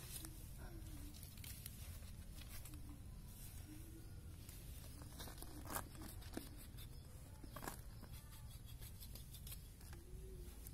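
Faint cutting and tearing of goat hide as a knife works the skin off the lower hind leg of a hanging carcass. A few sharp clicks come through, the strongest about six seconds in, over a low steady rumble.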